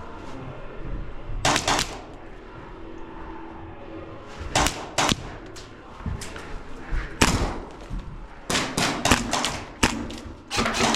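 HPA-powered Tokyo Marui MP7 gas blowback airsoft gun firing short bursts of a few sharp shots each, every second or two, more often near the end.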